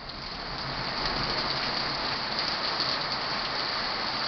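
Heavy rain pouring down, a dense steady hiss with scattered drop ticks, growing louder over the first second.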